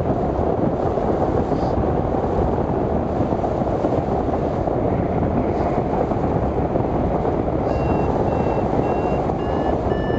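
Wind rushing hard over the microphone of a hang glider in flight. From about three-quarters of the way in, the glider's variometer beeps in a quick run of short pips, its pitch creeping slightly upward: the climb tone that signals rising air.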